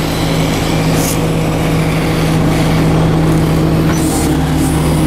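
International DT466 diesel engine of a garbage truck running and driving the hydraulic pump, a steady hum. About four seconds in, the low rumble grows as the hydraulics take load to raise the rear packer.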